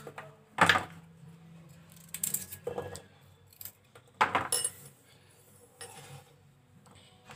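Small kitchen knife cutting the ends off raw carrots, its blade knocking and clinking against a granite countertop: a handful of separate sharp clicks and clatters, a second or so apart.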